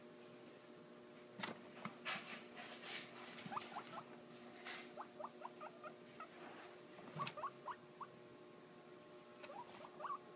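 Guinea pigs giving a series of short, soft rising squeaks, with scattered clicks and rustles as they move in wood-shaving bedding.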